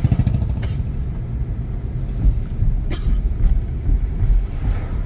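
Moving road vehicle: a steady low engine and road rumble, with a faint click about three seconds in.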